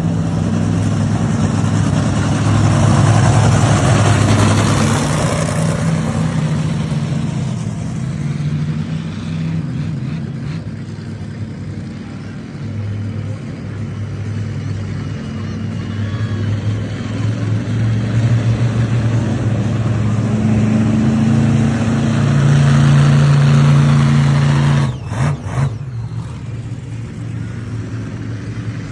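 Monster truck engine running hard and revving, surging louder twice. About 25 seconds in it suddenly drops off, blips a couple of times, then runs on.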